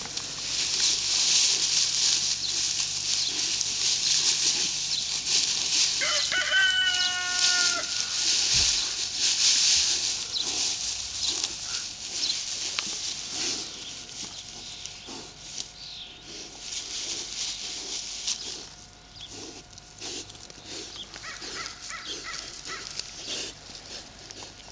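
Tamworth piglets rooting and tussling in loose straw, a steady rustling and crunching that is loudest through the first half. A rooster crows once, about six seconds in, and a few short bird calls come near the end.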